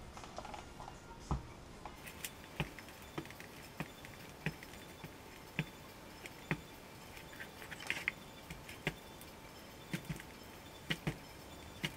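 Covering iron being slid over plastic laminating film on a foam wing: scattered light clicks and crackles, about one a second, over a faint steady hiss.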